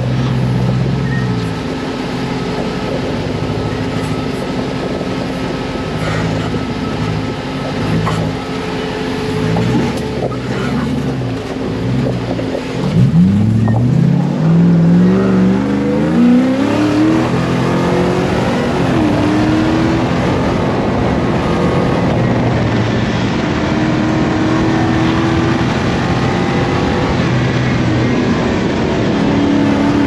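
Off-road buggy's engine running hard on a dirt track, its pitch rising and falling as the driver accelerates and eases off, with a quick climb in revs about halfway through, over a steady rushing noise.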